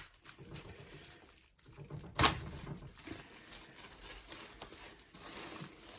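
Plastic wrapping being opened and handled, crinkling and rustling, with a sharp snap about two seconds in as the seal is broken.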